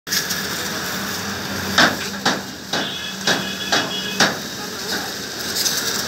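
Steady hiss of a water jet from a hose spraying onto a backhoe loader's metal bodywork. From a little under two seconds in, six sharp knocks sound in a regular beat, about two a second.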